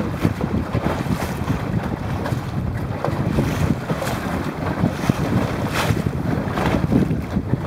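Wind buffeting the microphone, a dense low rumble, over choppy water splashing and rushing past close by, with louder splashes every second or so.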